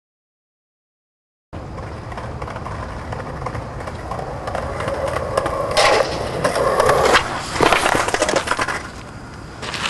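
Silence for about a second and a half, then skateboard wheels rolling on rough concrete, getting louder. From about six seconds in come several loud clacks and thuds as the board and the skater slam onto the pavement.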